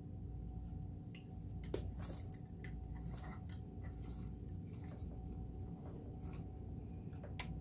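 Faint scattered clicks and small handling sounds from the open sewing machine and its oiler being worked by hand, over a steady low hum.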